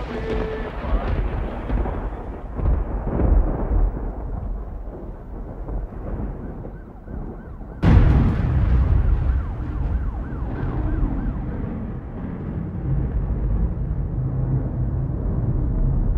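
A deep, rumbling noise that jumps suddenly louder about halfway through, as at a cut, with a faint wailing siren heard after the jump.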